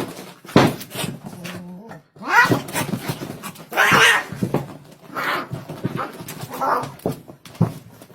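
A dog vocalising in a series of about six short calls, spaced a second or so apart.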